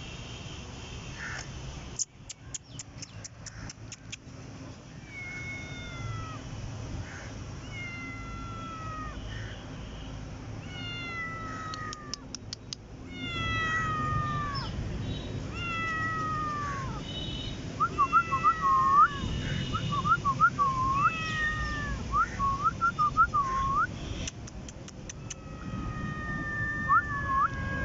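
Tabby kitten meowing over and over: high, falling meows every second or two, with a stretch of quicker, shorter cries past the middle. A few short runs of quick ticks come in between.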